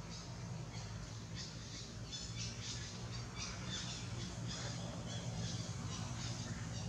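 Rapid high-pitched animal squawks and chirps, several a second, over a steady low hum.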